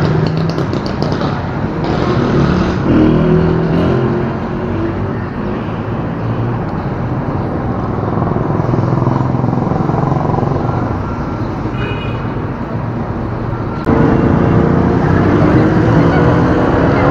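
Motorcycle engine running steadily at low revs, then revving up and pulling away about 14 seconds in.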